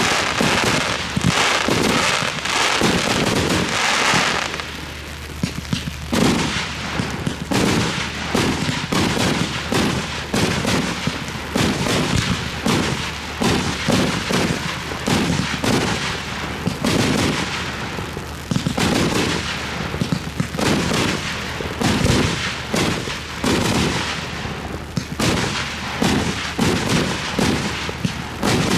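Fireworks display of aerial shells and cakes firing and bursting in quick succession: a dense string of bangs, several a second, with crackling during the first few seconds.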